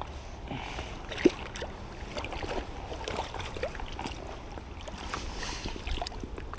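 Creek water running and splashing, with a low wind rumble on the microphone and one brief sharp knock about a second in.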